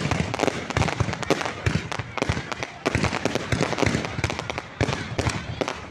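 Fireworks crackling and popping, a dense, rapid run of sharp bangs with a brief lull about three seconds in.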